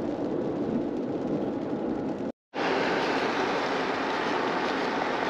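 Steady road and engine noise heard inside a moving car. About two and a half seconds in it drops out briefly, then gives way to a brighter, steady rushing of wind and choppy lagoon water at the shore.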